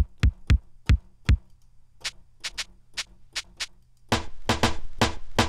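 Electronic drum samples from Native Instruments Maschine, triggered one at a time: five deep hits in the first second and a half, then lighter, bright ticks, then a quicker run of fuller hits near the end.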